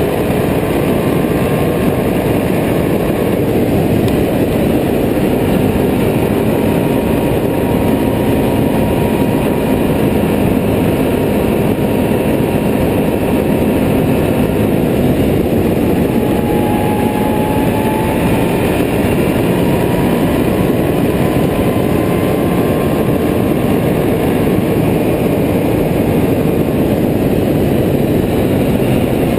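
Can-Am Renegade 800R ATV's Rotax V-twin engine running steadily under way at speed, mixed with wind rushing over the microphone.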